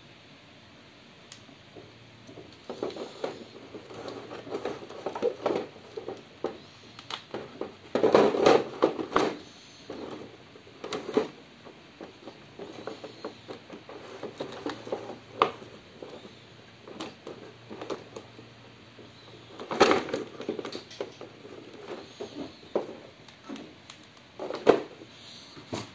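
Hands handling a vinyl toy figure in its packaging: irregular rustling, scraping and light knocks of the figure against a clear plastic tray and cardboard. The handling is loudest around eight seconds in and again around twenty seconds in.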